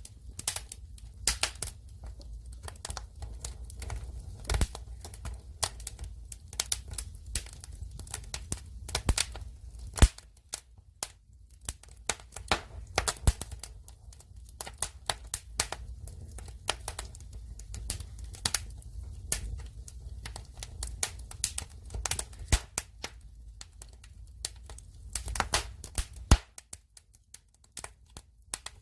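Wood fire crackling: dense, irregular snaps and pops over a steady low rumble of the burning logs, with a few louder pops, one about ten seconds in and another near the end, after which it briefly quietens.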